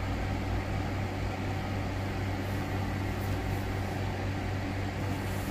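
Steady low hum with a faint even hiss: background room noise with no distinct sounds.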